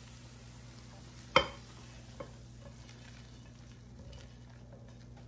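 Roasted corn kernels and sliced jalapeños being scraped with a spatula out of a skillet into a mixing bowl, with a soft rattle of kernels. One sharp knock comes about a second and a half in, and a lighter click follows a moment later.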